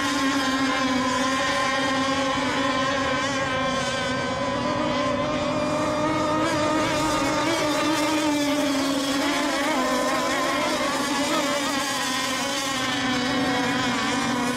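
Radio-controlled racing boats running on the course: a steady, high buzzing motor note with evenly stacked overtones, its pitch wavering slightly as the boats race.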